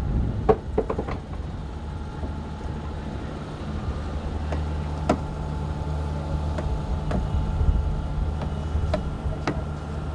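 Boat engine running steadily with a low hum, with a few sharp clicks and knocks scattered through.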